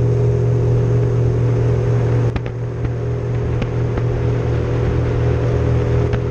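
Bass boat's outboard motor running steadily at speed, a constant drone with water and wind rushing past the hull, and a few faint knocks.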